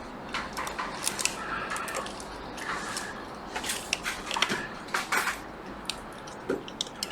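Small hard tools handled on a repair bench: irregular light metallic clicks and scrapes, a dozen or so, clustered around the middle.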